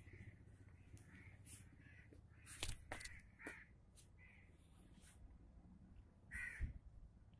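Crows cawing faintly: a string of short calls, with two louder ones about two and a half and six and a half seconds in.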